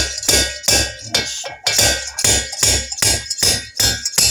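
A slide hammer striking its stop again and again, a quick run of ringing metallic clangs about two to three a second, as it pulls a tight rocker shaft out of a heated Norton Commando alloy cylinder head.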